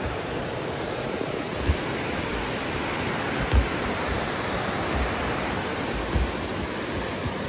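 Steady rushing of Dingmans Falls, a waterfall heard through the woods, with a few short low thumps.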